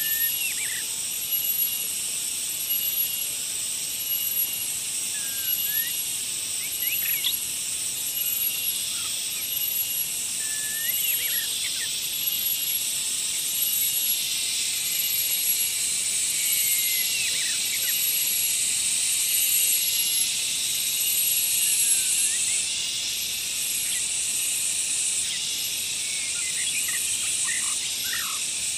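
Outdoor ambience of dense insect trilling, with a high tone pulsing about once a second. Scattered short bird chirps break in every few seconds.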